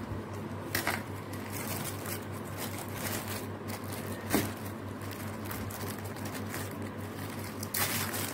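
Thin plastic wrapping crinkling and rustling as it is peeled off a block of soap base, with louder crinkles about a second in and again near the end. A steady low hum runs underneath.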